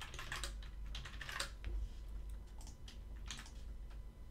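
Computer keyboard typing in quick bursts in the first second and a half, then a few scattered single clicks from the keyboard and mouse.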